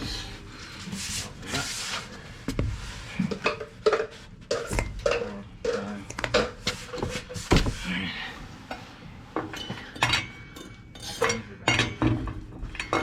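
Hand tools clinking and clanking on a truck wheel's lug nuts as they are broken loose one after another, irregular metal-on-metal taps with a few harder knocks.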